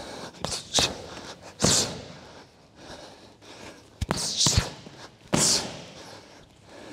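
Muay Thai punches and kicks smacking into handheld Thai pads, with sharp hissing exhales on the strikes. There are a few separate hits, with a quick cluster about four seconds in.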